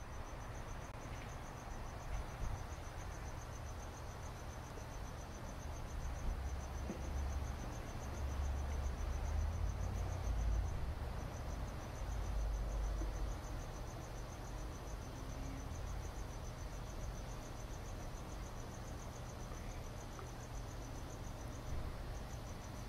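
Crickets chirping: a high, rapidly pulsed trill that breaks off briefly a few times, over a low rumble that swells in the middle.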